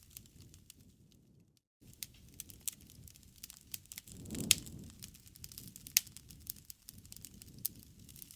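Campfire crackling, with sharp pops of burning wood over a low rumble of flames; the loudest pop comes about halfway through. The sound drops out entirely for a moment about a second and a half in.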